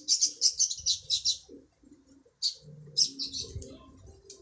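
A small bird chirping in quick runs of high, sharp chirps, about ten a second. The chirping breaks off about one and a half seconds in, then returns in two shorter runs.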